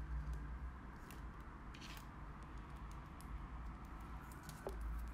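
Quiet handling on a tabletop: scattered light clicks and taps, the clearest about one and two seconds in, over a low steady hum.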